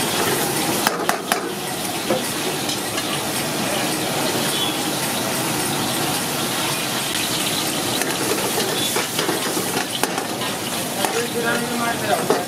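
Chicken curry sizzling in a wok over a gas burner while a long metal ladle stirs it, scraping against the pan, with a few sharp knocks of the ladle about a second in.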